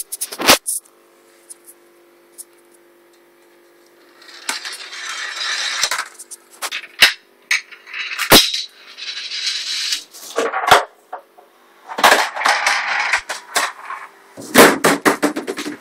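A homemade chain-reaction machine running: a ball rolling along metal rails and through tubes in stretches of rolling noise, broken by sharp clacks and knocks as it strikes and trips the parts. Near the end there is a flurry of knocks as DVDs, a book and a water bottle topple. A faint steady hum runs underneath.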